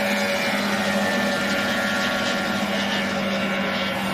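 A motor running at a steady speed, an even drone that holds one pitch throughout.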